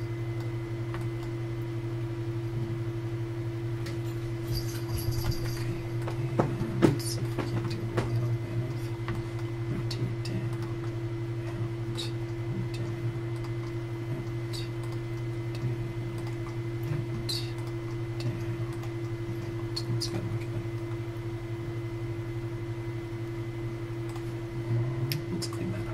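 Steady low electrical hum with a fainter high tone above it, over which a computer mouse clicks now and then, with a small cluster of clicks about six to eight seconds in.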